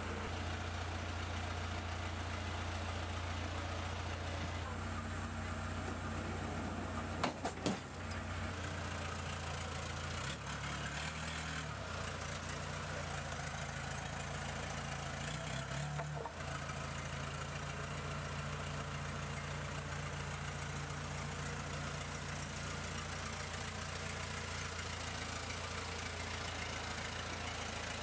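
Engines running steadily, a low drone whose pitch shifts a few times midway, with two sharp knocks about seven seconds in.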